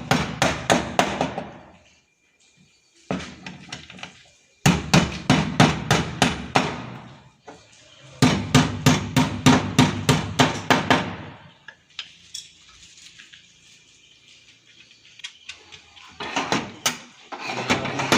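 A hammer striking quickly and repeatedly, about five or six blows a second, in bursts of one to three seconds with short pauses between them.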